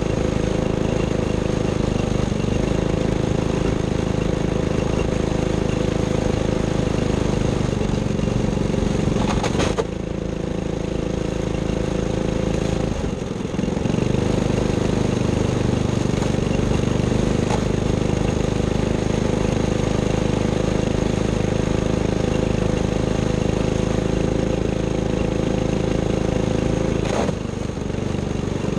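Race vehicle's engine running steadily at low revs, close to an idle, while the vehicle rolls slowly. Its sound dips briefly three times.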